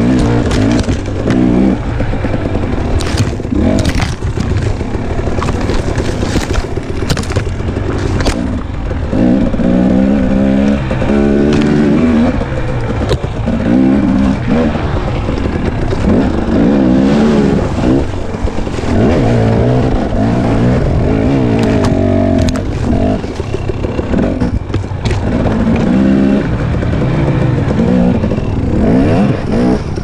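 Husqvarna TX 300's two-stroke enduro engine revving up and dropping back again and again on and off the throttle, with brush scraping and occasional sharp knocks against the bike.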